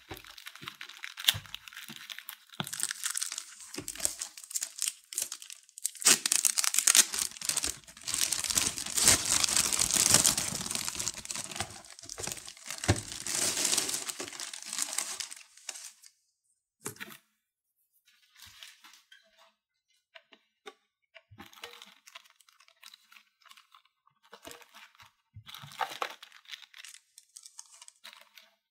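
Toy packaging being unwrapped by hand: a long stretch of crinkling and tearing, loudest midway, then a quieter run of scattered light rustles and taps as the pieces are handled.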